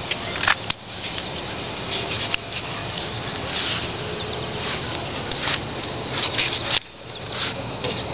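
Footsteps and camera handling noise: irregular light scuffs and clicks over a steady hiss.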